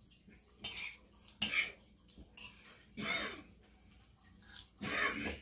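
Close-up mouth sounds of a person eating: several short smacks and breaths, about one a second.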